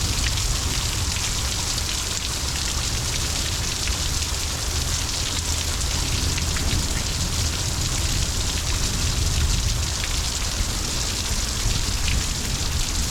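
Heavy rain pouring down in a thunderstorm: a dense, steady hiss of rainfall with a low rumble beneath it.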